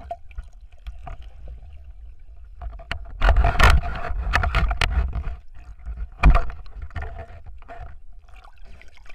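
Muffled underwater noise picked up by a waterproof camera: knocks, clicks and rustling from a speared fish being handled against it. About three seconds in a loud rush of water lasts two seconds, then a sharp knock follows; a faint steady tone runs underneath.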